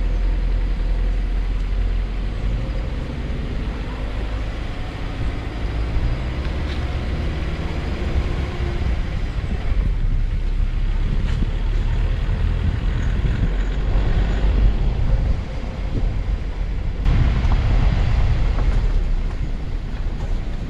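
Car engine running at low revs with tyre and body rumble as the car crawls along a bumpy dirt forest track, heard from the car itself.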